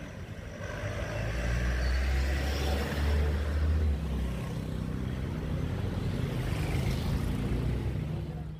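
Motor vehicle running on the road: a steady low rumble of engine and road noise that grows louder about a second in.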